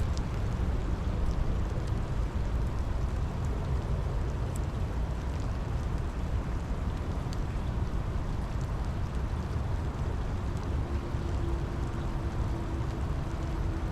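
Steady rain falling, an even rush with a strong low rumble and a few scattered drop ticks. A faint steady hum comes in about ten seconds in.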